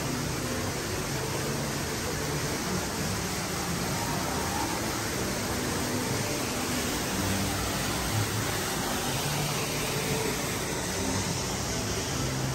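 Steady rushing background noise, even and unbroken, with faint snatches of low tones beneath it.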